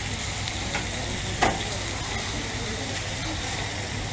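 Thin cuts of meat sizzling steadily on a hot flat griddle plate, with a single sharp click about one and a half seconds in.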